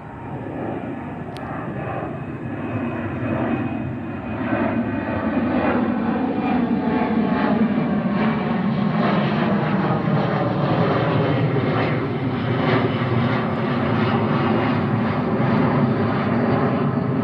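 Twin-engine jet airliner at takeoff power, its engine noise swelling over the first several seconds and then staying loud and steady as it rolls and climbs past.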